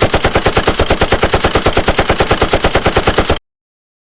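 Machine gun firing a sustained automatic burst, about eight shots a second at an even rate, cutting off abruptly near the end.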